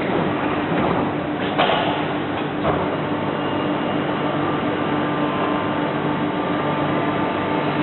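Renfe Civia electric commuter train humming steadily at the platform, with two short knocks about a second and a half and two and a half seconds in as its sliding doors close before departure.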